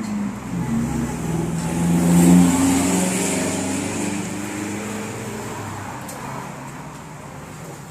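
A motor vehicle's engine passing close by on the road, growing louder to a peak about two seconds in and then fading away slowly.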